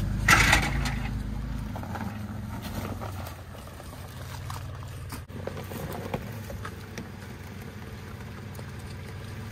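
3rd-gen Toyota 4Runner's engine running at low revs as the truck crawls over mud and rocks, with tyres working through wet ground. A brief louder rush of noise about half a second in; the engine rumble is quieter after a cut about halfway through.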